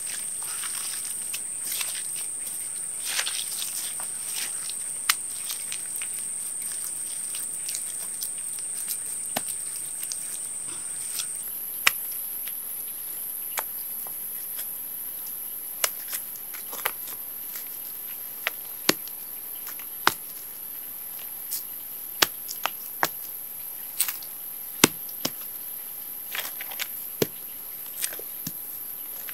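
Stones being knocked together and set down on the earth while loose soil is scraped by hand, giving scattered sharp clicks and knocks. Under them runs a steady high drone of insects, which jumps higher in pitch about eleven seconds in.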